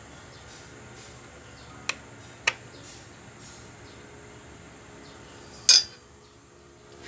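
Three sharp metallic clinks of tools and parts being handled on a sewing machine's clutch motor: two close together about two seconds in, and a louder, briefly ringing one near the end, over a steady low hiss.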